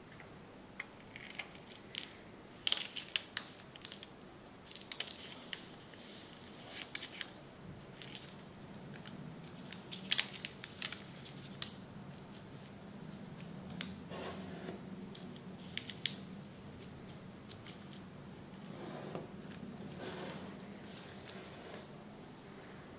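A sheet of origami paper being folded and creased by hand: irregular crisp crackles and rustles as folds are pressed flat, with a few sharper snaps.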